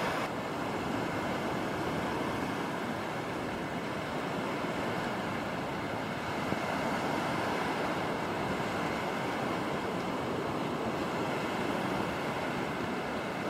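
Small surf waves breaking and washing over a shallow, flat sandy beach: a steady, even wash of water.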